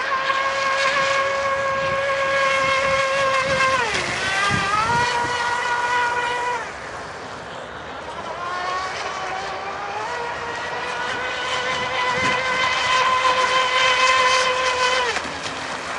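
Radio-controlled racing boat's motor running at high revs, a high-pitched whine that dips in pitch about four seconds in and again a couple of seconds later as the throttle comes off, fades and then climbs back to full speed, and drops off once more near the end.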